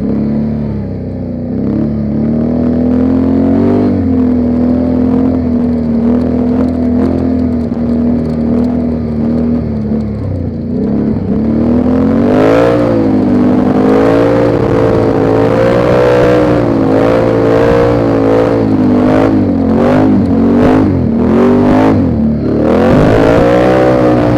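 ATV engine running while riding, holding a steady pitch for about ten seconds, then revving up and rising and falling with the throttle. Knocks and rattles come through in the second half.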